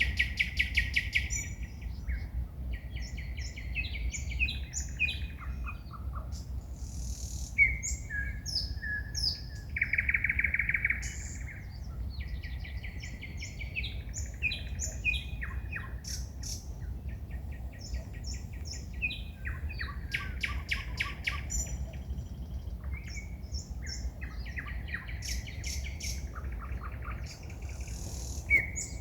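Forest songbirds singing at night: a continuous run of varied phrases made of fast repeated notes, trills and clear whistles, with a low steady rumble beneath.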